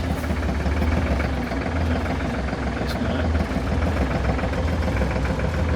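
Massey Ferguson 4710 tractor's diesel engine running steadily, heard from inside the cab, with a strong low hum.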